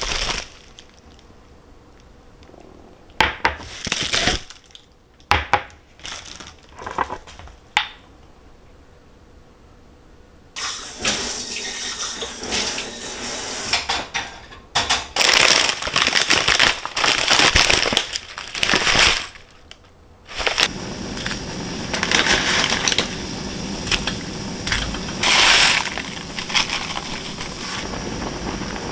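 Scattered crinkles and light knocks of glass cups being unwrapped from plastic bubble-wrap packaging, then a kitchen tap running in spells as the glasses are washed at the sink. About twenty seconds in, a steadier rush of water takes over.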